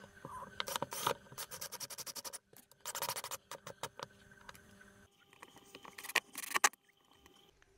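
Screwdriver driving a screw through a flange base into a wooden desk top: spells of quick clicking and scraping, a quieter stretch in the middle, and a last short spell near the end.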